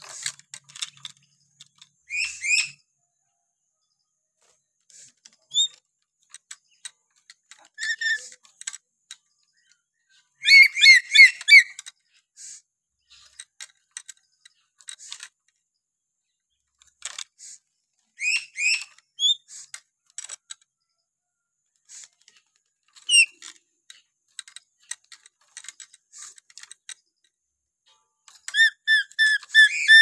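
Black-capped lory (nuri paltem) giving short, loud whistled calls in scattered groups. About ten seconds in comes a quick run of about six notes, and another run follows near the end.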